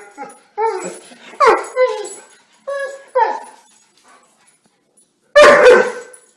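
A Doberman and a kitten trading short whining, mewing calls: about five brief calls that bend in pitch, then a louder, longer call near the end.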